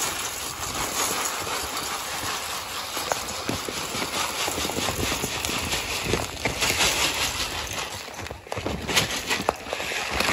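Dry rice pouring from a plastic bag into a stainless steel pot: a steady hiss of grains striking the metal and each other, turning uneven with a few sharper clatters near the end.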